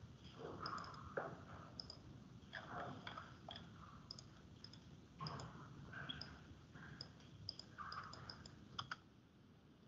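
Faint, irregular clicks of a computer mouse.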